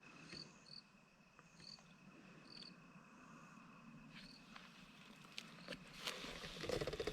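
Crickets chirping faintly: short high chirps about once a second over a thin steady trill. A few clicks and some rustling come near the end.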